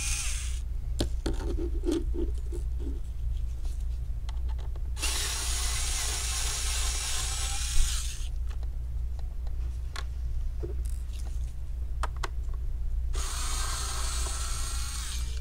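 Cordless electric screwdriver backing out small screws from a computer's base. It runs three times: briefly at the start, for about three seconds in the middle ending in a sharp click, and again near the end. Small clicks and taps come in the pauses between runs.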